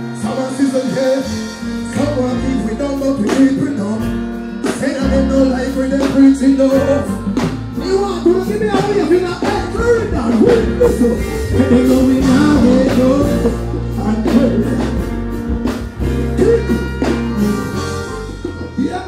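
Live stage performance: a male artist singing and deejaying into a microphone over a band, with heavy bass and drums through a large PA system. The bass drops out briefly about four seconds in, then comes back.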